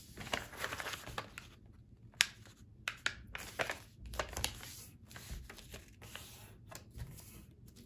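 A square sheet of paper being folded along its diagonal and creased by hand: light rustling and crinkling with short crackles, the sharpest one about two seconds in.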